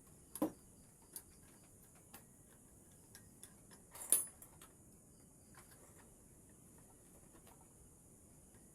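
Small hard objects being handled while building something: scattered light clicks and taps, with two louder knocks, one about half a second in and one about four seconds in, over a faint steady hiss.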